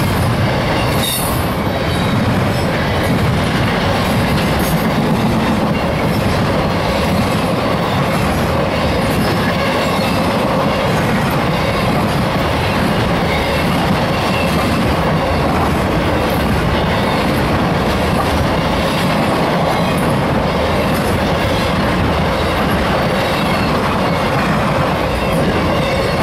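Intermodal freight train's double-stack container cars and trailer flatcars passing close by: a steady rumble of steel wheels on the rails, with light clicks over the track.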